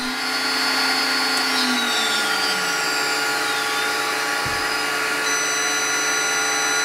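CNC router spindle, driven by a VFD, running steadily at speed, with a high-pitched whine over the motor noise.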